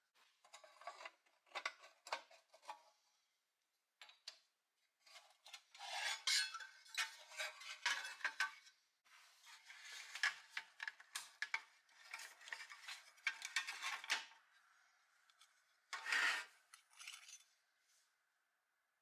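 Pressed-steel parts of a Tonka toy dump truck being handled and pulled apart by hand: irregular clinks, rattles and scraping of sheet metal against metal, in bursts, with a last short scrape about three seconds before the end.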